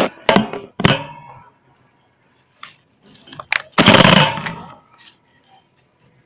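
Handling noise: the camera knocking and rubbing against a wire shopping cart, with a cluster of sharp rattling knocks in the first second and a louder scraping rush about four seconds in.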